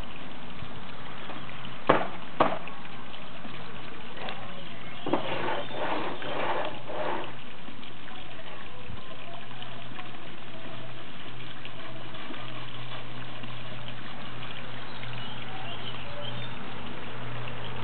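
Garden pond water trickling steadily over a low steady hum. Two sharp little splashes come about two seconds in, and a short flurry of splashing follows around six seconds in, as fish break the surface.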